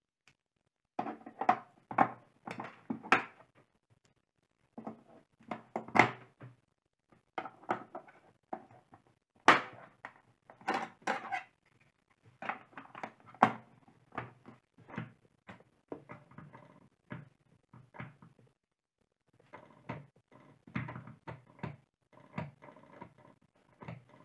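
Irregular clusters of sharp plastic clicks and knocks: AAA batteries being pressed into the battery compartment of an Honor Smart Scale 2 bathroom scale and its plastic cover being fitted back on.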